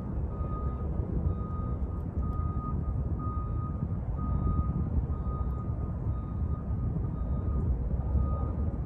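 A truck's reversing alarm beeping at one steady pitch, a bit more than one beep a second, over a low rumble of engines and street traffic.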